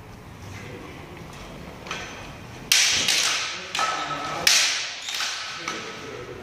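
Bamboo shinai clacking together in a sparring exchange: a flurry of sharp clacks in the middle, three of them loud, each ringing on in a large hall's echo.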